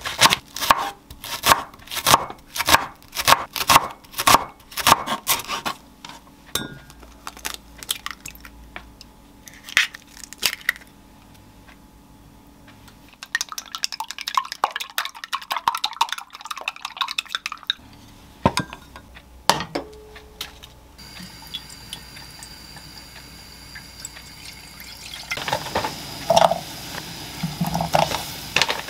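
A kitchen knife chopping green onion on a wooden cutting board, about two chops a second, for the first few seconds. About halfway, chopsticks beat eggs in a glass bowl with rapid clicking. In the last third, a pot of water on a gas stove hisses steadily, with a few knocks near the end as food is put into the pot.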